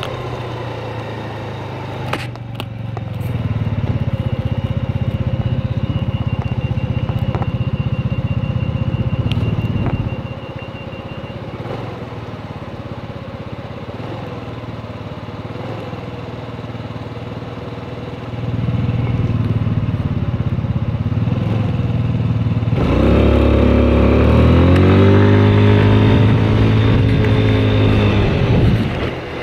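Motor scooter's small engine running at a standstill, with other traffic going by, then pulling away about three-quarters of the way through: the engine note rises in pitch as it accelerates, levels off and eases near the end. A faint rapid high beeping sounds for a few seconds early on.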